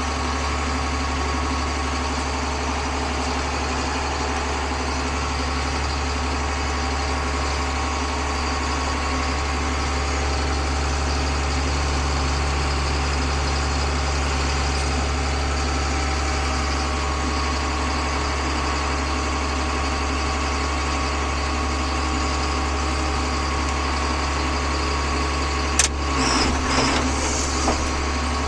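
Farm machine's diesel engine running steadily at constant speed, a deep even drone. Near the end a sharp click is followed by brief rattling.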